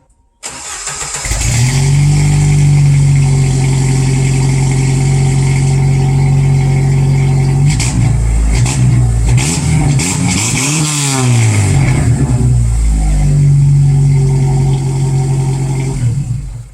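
Car engine running through a TotalFlow two-chamber muffler on a freshly sealed exhaust, now free of leaks: a steady exhaust note, then several revs rising and falling in the middle, settling back to a steady note before cutting off.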